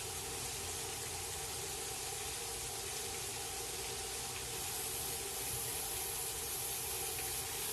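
Fish fillets frying in peanut oil in a cast-iron pan: a steady sizzle from moisture boiling out of the fish, a little louder from about halfway through, with a faint steady hum underneath.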